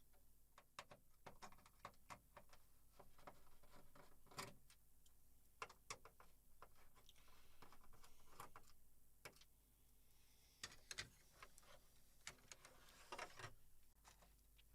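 Faint, irregular clicks and taps of hand tools and screws on a flat-screen TV as its stand is unscrewed and taken off, with near silence between the clicks.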